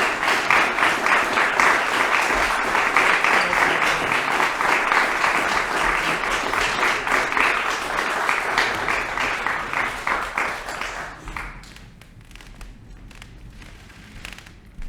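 Theatre audience applauding with steady clapping, which dies away about eleven seconds in.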